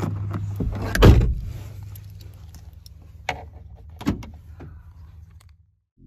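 Inside a car cabin: a steady low hum with a loud knock about a second in and two sharp clicks later on, as the door-panel switches and a dashboard button are pressed.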